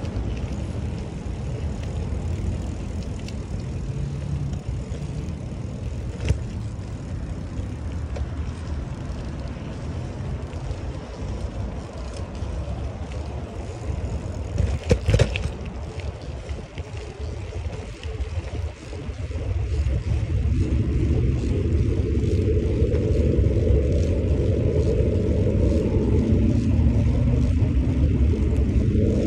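Low, steady rumble of wind and road noise while riding a bicycle, with a brief knock or rattle about halfway through; the rumble grows louder in the last third.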